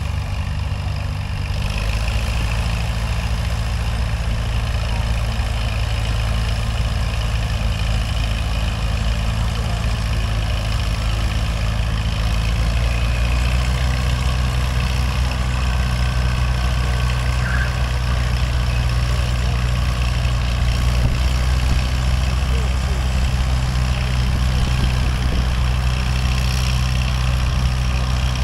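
Antique farm tractor engine running steadily under heavy load as it pulls a weight-transfer sled down the track at slow, even speed. It grows a little louder about halfway through.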